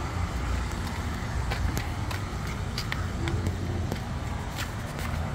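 Steady low background rumble with a number of faint, scattered clicks.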